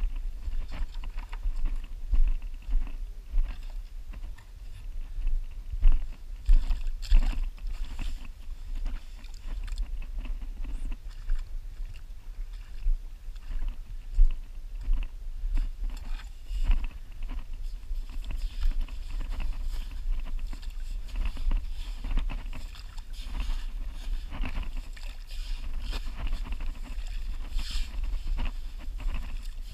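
Footsteps on wet tidal mud and sand with irregular knocks and scrapes, over a steady low wind rumble on the microphone. Near the end a short shovel digs into wet sand.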